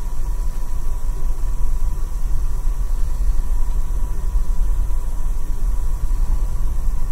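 Steady low rumble of a moving passenger train heard from inside the car, with a faint steady high whine over it.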